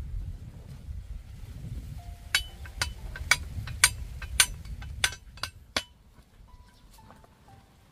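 A machete knocking on bamboo stakes to set them into the soil of a garden-bed edging: about ten sharp strikes from about two seconds in, a few with a short metallic ring, stopping near six seconds.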